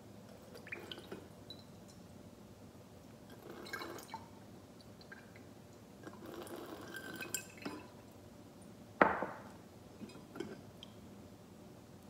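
Liquid poured from a glass jar through a small metal colander into a glass, in two short spells of trickling, with scattered light clinks of glass and metal. A sharp clink about nine seconds in is the loudest sound.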